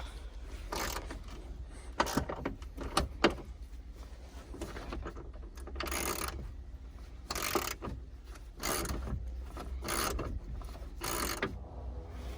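Hand socket ratchet being worked on a hinge nut in short strokes, each stroke a brief rasping click-run about every second and a half, with a few sharp clicks in the first seconds.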